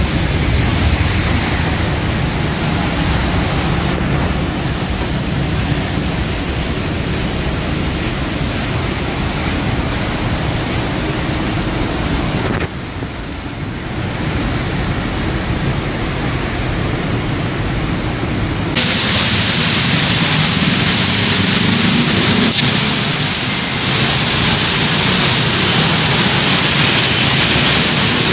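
Steady rush of rain, with no distinct events in it. About two-thirds of the way through it turns louder and brighter.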